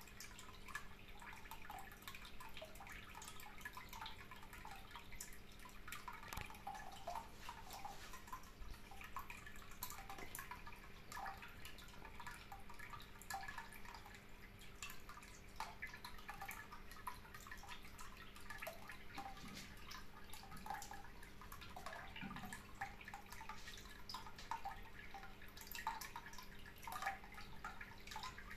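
Water trickling and dripping continuously in small irregular plinks, over a faint steady electrical hum.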